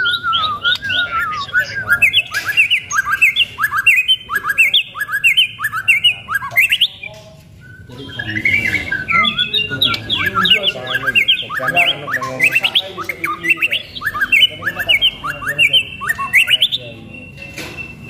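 White-rumped shama singing: a fast run of short upward-sweeping whistled notes, about three a second, that breaks off for a moment about seven seconds in and then resumes, ending on a held high note.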